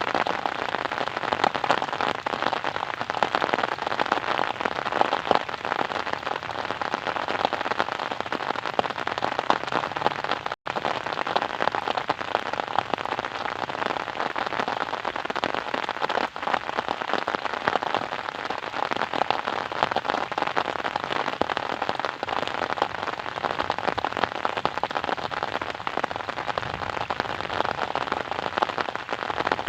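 Steady heavy rain, a dense even patter of countless drops hitting a surface. It breaks off completely for an instant about ten seconds in.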